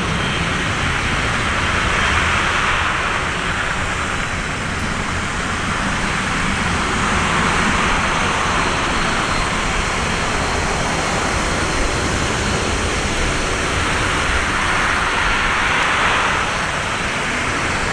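Jet engine noise from a Boeing 737-200's low-bypass Pratt & Whitney JT8D turbofans, a loud steady rush that swells and eases a few times.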